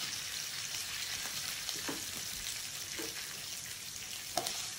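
Hot oil sizzling in a pan of tadka (chana dal, cumin, mustard seeds and curry leaves) with freshly added chopped green chilies: a steady hiss with a few faint ticks.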